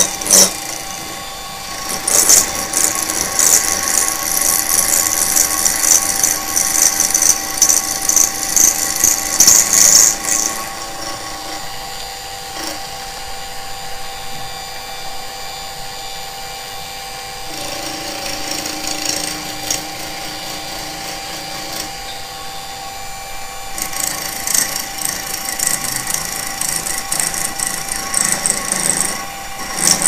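Mini milling machine running, its end mill cutting into a padlock clamped in a vise. There is loud cutting noise for about eight seconds. Then for several seconds only the steady whine of the spindle motor is heard, then some lighter cutting, and heavy cutting again near the end.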